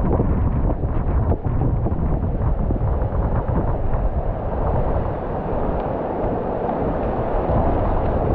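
Strong wind buffeting the camera microphone, a steady, rough rush, over the wash of small waves breaking at the shoreline.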